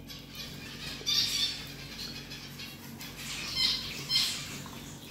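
Small cafe birds chirping and squawking in short bursts, about a second in and again near four seconds, as they crowd round begging for food.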